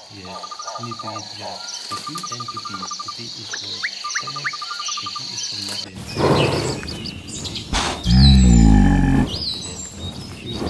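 Insects buzzing with a steady high whine and birds trilling for about six seconds. A cow then gives one loud, low moo about eight seconds in, lasting about a second, with birds chirping around it.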